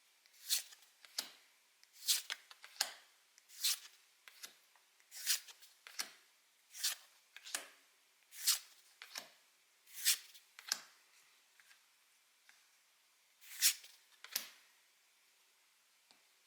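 Pokémon trading cards being handled one after another, each giving a short crisp swish or snap as it slides against the others, about one every three-quarters of a second. They pause for about three seconds, then resume near the end.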